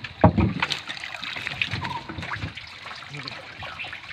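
Water splashing and trickling off a wet cast net full of weed as it is hauled out of the river over a boat's side, with one loud sharp impact about a quarter second in.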